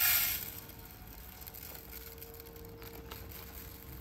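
Uncooked rice poured from a plastic bag into an aluminium mess tin: a brief rush of grains hitting the metal at the start that fades within about half a second, followed by faint rustling of the bag.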